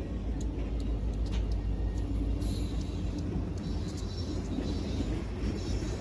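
Low, steady vehicle rumble.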